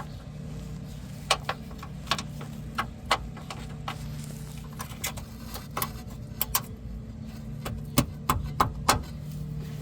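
Irregular sharp metal clicks and clinks of a brake line's retaining clip being worked out of its bracket, over a steady low hum.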